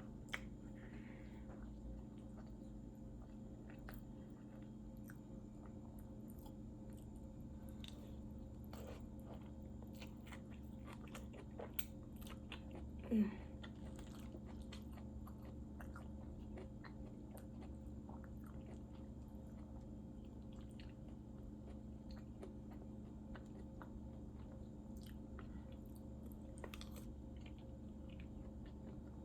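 Faint close-miked eating: chewing and biting with soft wet mouth clicks and smacks, over a steady low hum. About halfway through comes one brief, louder, falling sound.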